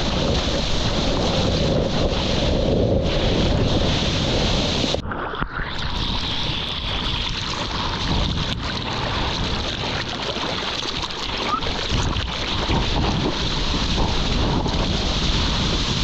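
Water splashing and rushing around a surfboard being paddled, picked up close on a GoPro's microphone, with wind buffeting the microphone. About five seconds in the sound goes briefly muffled before the splashing returns.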